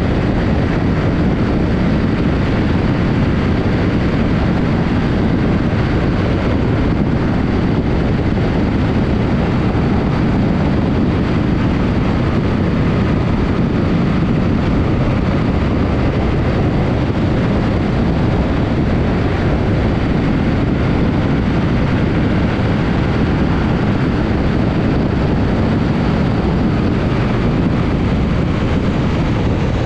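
Steady wind noise buffeting the microphone on a moving BMW R1200GS Adventure motorcycle, with the bike's running noise underneath.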